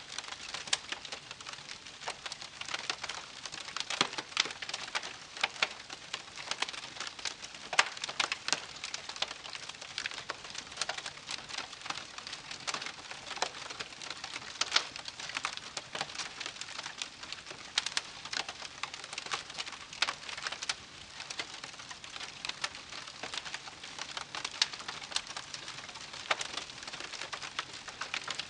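Wood fire crackling: irregular sharp pops and snaps, several a second, over a steady hiss of burning wood.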